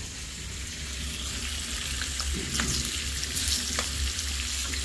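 Sea bass fillets frying in olive oil in a pan, sizzling steadily, with a few sharp crackles in the second half as handfuls of sliced onion are dropped into the hot oil.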